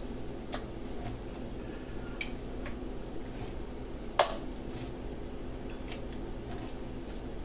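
Pieces of raw salmon set by hand into a mixing bowl: scattered soft taps and clicks against the bowl, with one sharper knock about four seconds in, over a steady low hum.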